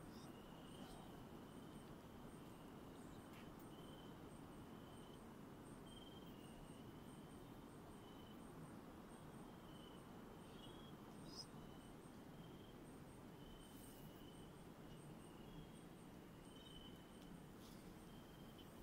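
Faint night-time forest chorus of calling animals: short repeated high notes with a regular, very high ticking above them, over a low hiss.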